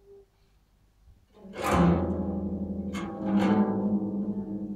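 Live experimental music on piano and koto-like zither: near quiet at first, then a deep string note swells in a little over a second in and rings on with many overtones, followed by two sharp struck attacks about three seconds in that leave a long, low ringing tone.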